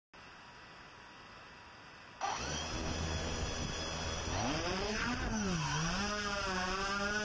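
Yuneec Typhoon H hexacopter's motors and propellers starting about two seconds in with a sudden jump in loudness, then a whining hum that rises in pitch for lift-off, dips, and settles at a steady pitch as the drone climbs.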